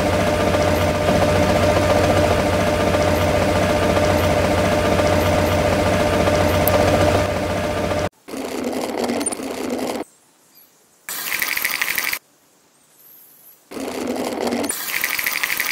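Small battery-powered electric motor running steadily, turning the drum of a miniature toy concrete mixer, with a constant whine and rattle. About eight seconds in it stops, and several short separate bursts of scratchy noise follow with quiet gaps between them.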